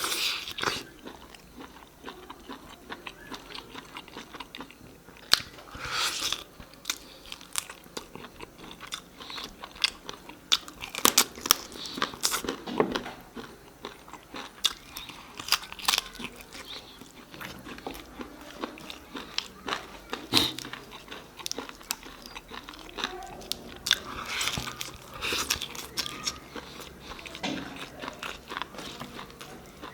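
A person eating close to the microphone: chewing and biting food, with many small irregular clicks and a few louder clusters of bites scattered through.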